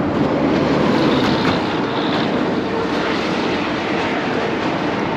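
Steady rush of traffic crossing the highway bridge alongside, mostly tyre and engine noise, swelling slightly about a second in.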